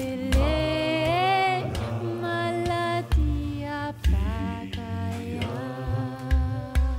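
A voice singing long held notes that slide up and down in pitch, with low thuds now and then.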